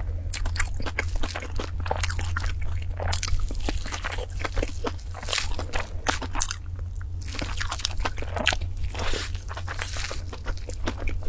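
Close-up crunching and chewing of a crunchy food, many irregular sharp crunches one after another, over a steady low hum.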